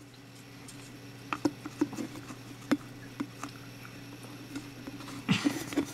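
Low steady hum with a handful of faint, light clicks scattered through it, then a short rustle near the end.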